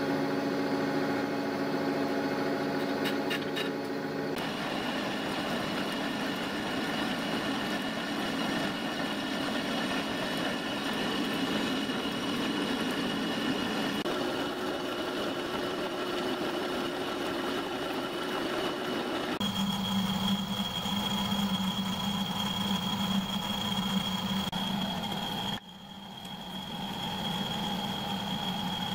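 Metal lathe running with its chuck spinning a steel bar blank while the end is faced. The sound changes about four seconds in, turning noisier with a high whine, shifts again about two-thirds of the way through, and drops suddenly near the end.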